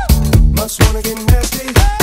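Dance music with a steady drum beat and a bass line.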